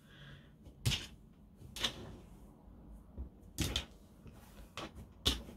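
Fluffy cloud slime made with instant snow being squeezed and pressed between the hands, giving a series of short, sharp pops and snaps, about one a second.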